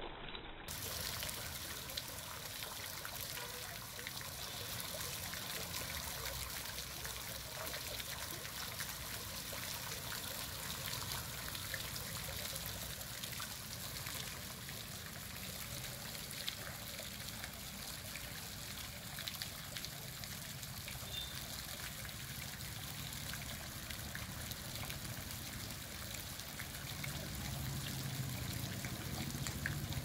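Water jets from a revolving peacock-tail fountain nozzle spraying up and splashing down into the pool, a steady hiss of falling spray.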